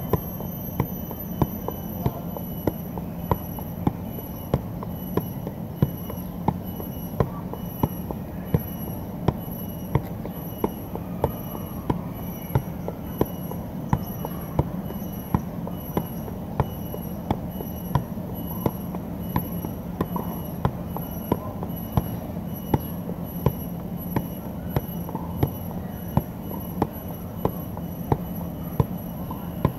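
A soccer ball being juggled on the feet, kept up without a break: a regular dull thud of foot on ball roughly every 0.7 seconds, steady in pace and strength.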